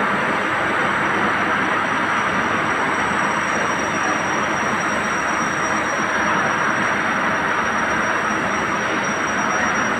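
Steady running noise of CNC machinery in a machine shop: an even rushing sound with two faint, steady high-pitched whines, unchanging throughout.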